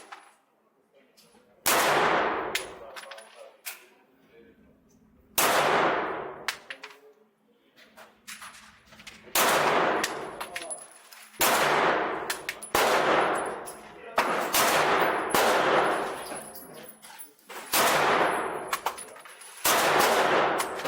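A Ruger Mark IV Lite .22 LR pistol fired in slow single shots, one to four seconds apart. Each shot is a sharp crack followed by a long echoing decay, with fainter cracks in between.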